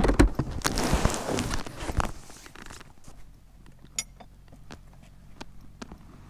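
Footsteps, loudest and densest over the first three seconds, then thinning to a few fainter scattered steps and clicks.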